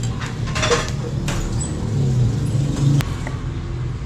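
Kitchen knife slicing a tomato on a wooden cutting board: a few soft cuts and taps of the blade on the board, with one sharp knock about three seconds in, over a steady low hum.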